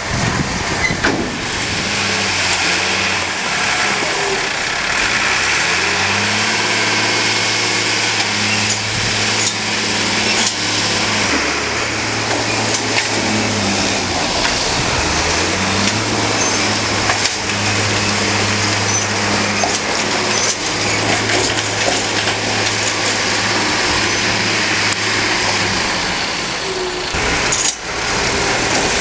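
Farm tractor's diesel engine running steadily under a wash of mechanical noise. Its revs drop and pick up again a few times, with a last drop near the end.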